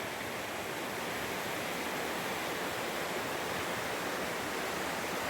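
Steady, even rush of flowing water, like a stream or waterfall.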